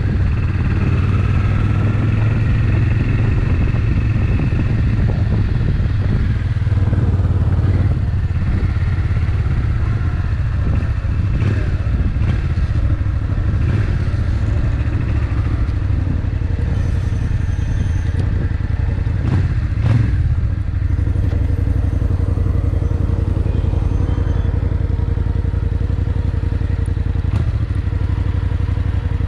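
Suzuki Intruder VS800's V-twin engine running steadily at low road speed, heard from on the bike, with a few short knocks, the loudest about two-thirds of the way through.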